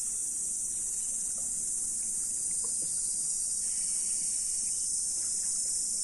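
Steady high-pitched drone of an insect chorus, with a few faint ticks beneath it.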